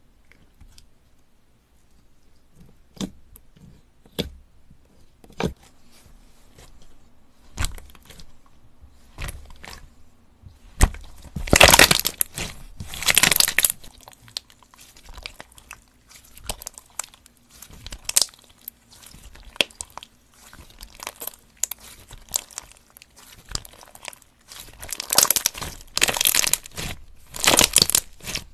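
Clear red slime handled by fingers and hands: sparse soft clicks and pops as it is poked, then loud crackling and popping as it is squeezed and folded, starting about ten seconds in, with another dense stretch of crackling near the end.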